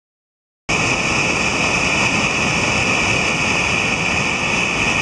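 Mountain stream cascading over rock ledges into pools: a steady, loud rush of water that cuts in abruptly under a second in.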